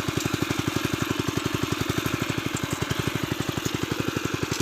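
Small engine of a welding-shop-built motorized dawra (inter-cultivator) running steadily with an even, rapid chugging pulse.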